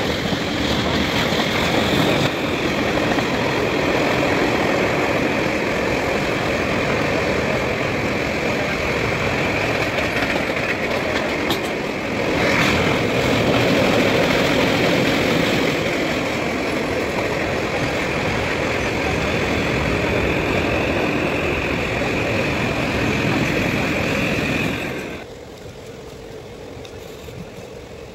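A long goods train of open wagons passing close by on the next track, a loud steady rush of wheel and rail noise heard from a moving passenger train. About 25 seconds in it drops away sharply, leaving the quieter running noise of the passenger train.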